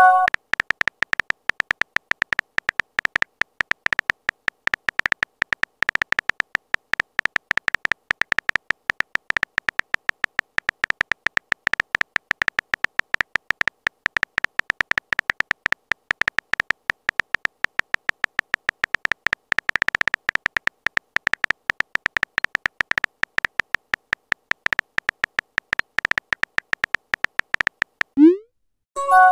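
Phone keyboard typing sound effect from a texting-story app: a fast, steady run of short high clicks, one per letter typed. Near the end a rising blip and a short chime sound as the message is sent.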